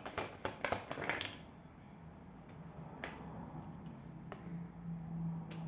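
Tarot cards being handled on a table: a quick run of sharp card clicks in the first second or so, then a few single clicks as a card is drawn from the deck and laid down.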